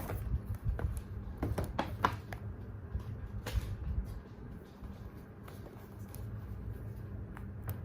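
Packaging being handled: scattered rustles and light clicks of a box and wrapping, busiest in the first few seconds, over a steady low hum.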